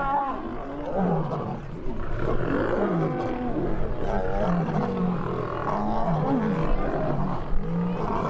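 Lions growling and snarling as they fight, a steady run of short rough calls about one every half second to second.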